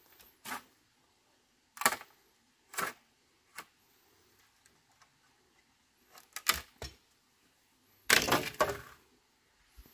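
A series of sharp, irregular knocks and cracks: a few single strikes about a second apart, a quick pair a little past the middle, then a longer, loudest burst of cracking clatter near the end.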